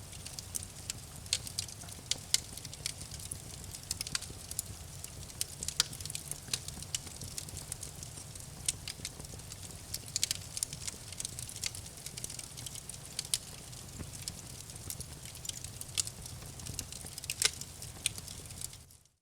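Campfire burning: wood crackling with frequent, irregular sharp pops over a low steady rumble. The sound cuts out briefly at the very end.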